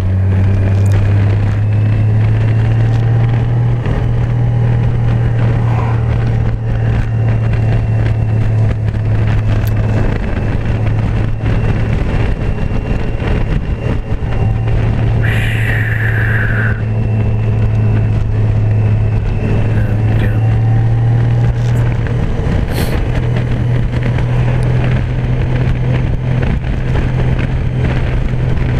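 Honda Gold Wing motorcycle engine running steadily at cruising speed, with road and wind noise, heard from the rider's seat. A short high-pitched falling sound comes about halfway through.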